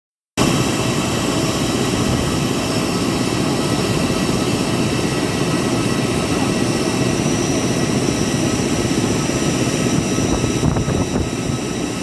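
Jet airliner running during pushback: a steady jet whine of several high tones over a continuous rushing noise.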